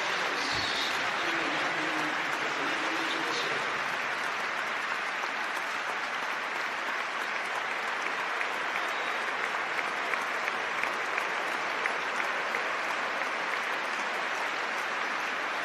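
Large stadium crowd applauding steadily, a dense wash of clapping, with a few nearer individual claps standing out about halfway through.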